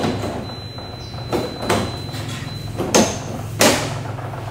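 A few sharp plastic clicks and knocks as a TV's plastic frame piece is pressed and snapped into place around the display panel.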